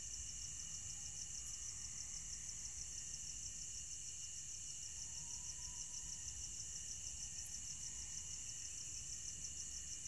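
Crickets chirping in a rapid, even, unbroken pulse, with a fainter steady insect trill at a lower pitch beneath.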